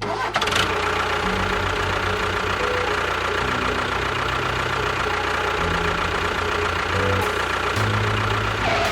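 An engine running steadily at idle, with a low note that shifts up and down every second or so.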